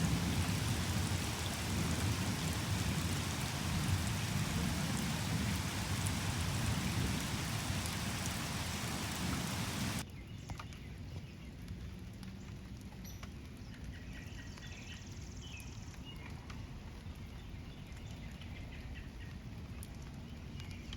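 Heavy rain falling steadily, with a deep low rumble under it. About halfway it cuts suddenly to a quieter, lighter rain sound.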